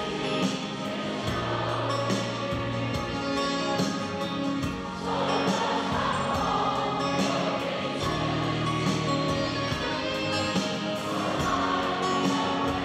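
Large concert audience singing a pop ballad together in unison, a mass of voices over the live band's accompaniment.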